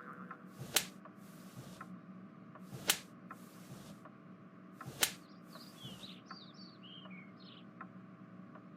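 Three sharp clicks about two seconds apart, each followed by a brief hiss, then a quick run of short high chirps.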